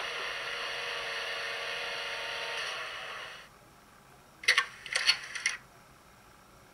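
Diesel engine sound from the ESU sound decoder's speaker in an HO-scale BR 232 'Ludmilla' locomotive model, idling steadily, then fading out about three seconds in as the loco is shut down. About a second later comes a quick cluster of three or four sharp clicks.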